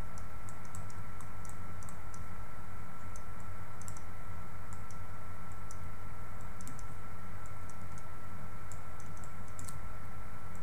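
Light, irregular clicks and taps in small clusters from the pen input while the circuit is being drawn on screen, over a steady electrical hum with a faint high whine.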